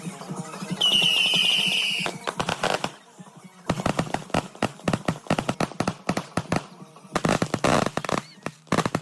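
Fireworks going off: a shrill whistle lasting about a second, then rapid runs of sharp crackling pops, like strings of firecrackers.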